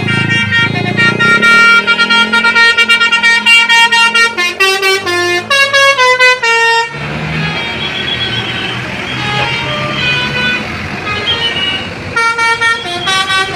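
Tour bus's telolet basuri musical horn playing a quick tune of stepped notes. It breaks off about halfway for several seconds of engine and road noise, then starts its tune again near the end.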